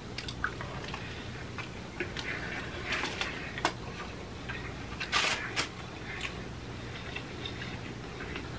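Close-up chewing of a Gordita Crunch, a crunchy taco shell wrapped in soft flatbread, the shell cracking in irregular crackles between softer mouth sounds; the loudest crunches come about five seconds in.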